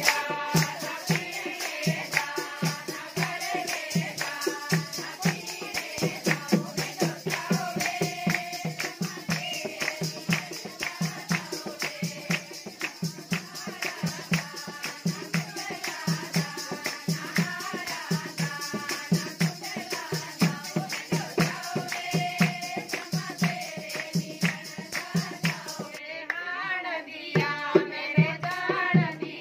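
Women singing a Himachali Pahari folk song together for gidda dancing, over a steady beat of drum strokes and handclaps.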